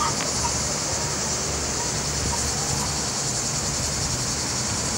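Steady high-pitched drone of a cicada chorus in the surrounding trees, with a low rumble of wind on the microphone.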